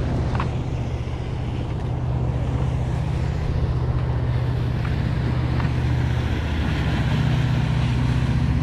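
Motorboat engine running under way as the boat passes close by, a steady low drone that grows slightly louder about six and a half seconds in.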